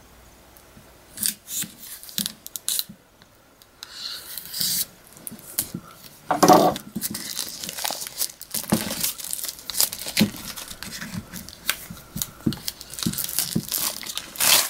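Plastic shrink wrap being cut and torn off a boxed Blu-ray set: scattered clicks and scrapes at first, then several seconds of steady crinkling and crackling as the wrap is peeled away, with one louder rip near the middle.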